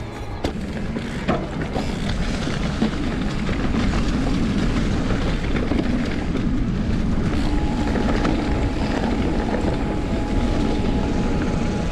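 Ride noise of a bike going off road: a steady low rumble with wind on the microphone, and a few sharp knocks in the first three seconds.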